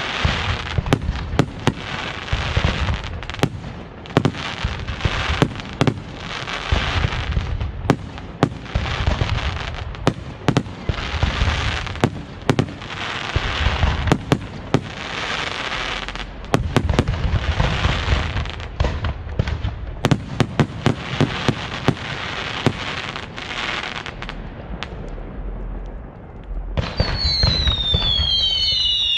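Castillo fireworks display by Pirotecnia Ricardo Caballer: a dense, continuous run of sharp shell bursts and crackling. Near the end it thins briefly, then several high whistles come in, each falling in pitch.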